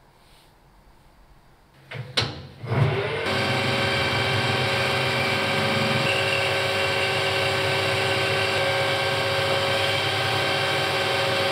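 A metal lathe starts with a few knocks and a short rising whine about two seconds in, then runs steadily, humming with several held tones as its cutting tool turns down a new metal pin.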